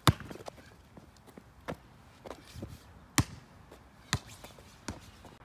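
A basketball bouncing on pavement: about five separate bounces at uneven intervals, the first the loudest.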